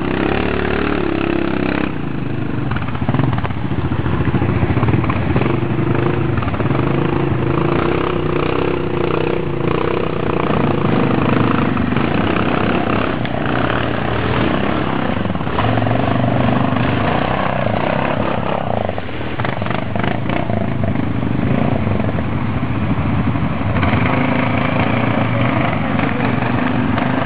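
Several ATV (quad bike) engines running under load as the machines climb a steep slope, with the engine pitch rising and falling as the throttle is worked.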